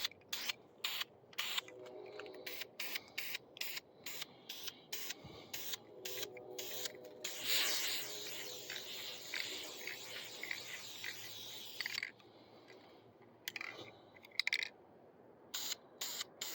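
Aerosol spray paint can being shaken, its mixing ball rattling a few times a second, then a continuous hiss of paint spraying for about four seconds from around seven seconds in. The rattling resumes near the end.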